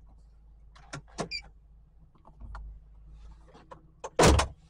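Scattered small clicks and knocks of controls being worked in a van's cab, with a brief low rumble about two and a half seconds in, then one loud thunk near the end.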